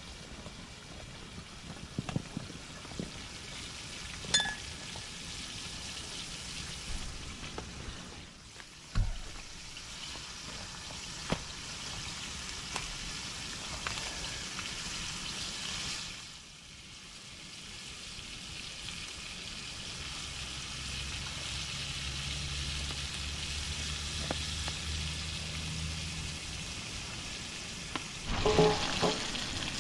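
Pieces of jundiá catfish frying in oil in a pan, with a steady sizzle that dips briefly about halfway through and then swells again. A few sharp knocks sound over it, and a louder clatter comes near the end.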